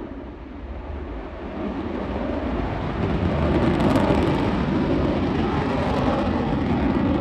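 F-35A Lightning II's single Pratt & Whitney F135 turbofan in afterburner: loud, even jet noise from the climbing fighter. It eases at first, then builds back up over the next few seconds and holds steady.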